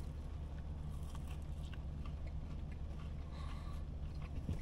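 Faint crunching and chewing as a crispy, oily fried hash brown is bitten into and eaten, with small scattered crackles over a steady low hum.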